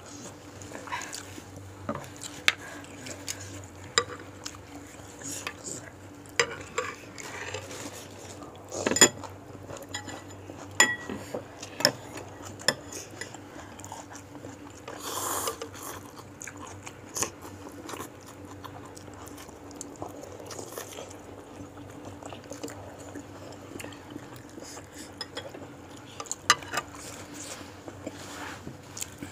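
Cutlery clinking and scraping against a bowl of bakso at irregular intervals, with quieter eating sounds in between.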